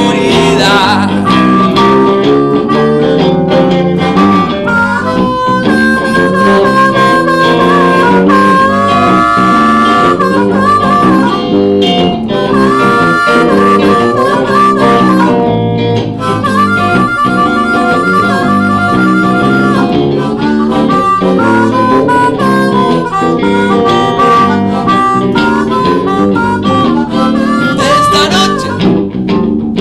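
Live blues-rock band music with a harmonica solo, the harmonica cupped against a handheld microphone, playing held and bending notes over electric guitar and electric bass.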